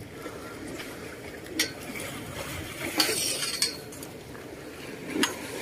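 A few scattered light metallic clinks and knocks, about four in all, as a fishing rod and spinning reel are handled against a stainless steel railing.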